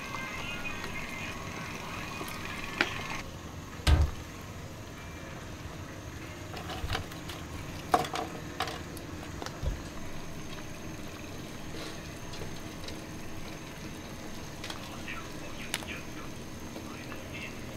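Pot of goat leg broth bubbling steadily at a boil on a gas burner, with a few sharp knocks, the loudest about four seconds in.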